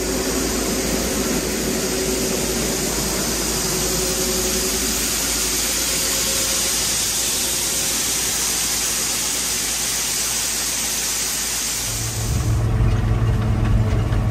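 A loud, steady rushing noise with a faint hum runs until about twelve seconds in, then gives way to a low engine idle.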